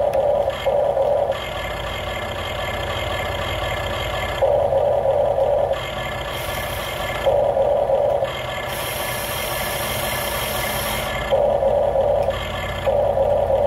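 Top Race TR211M RC excavator running under remote control: its electric motors whir and its speaker plays a simulated engine sound, the tone changing every one to three seconds as different functions are worked.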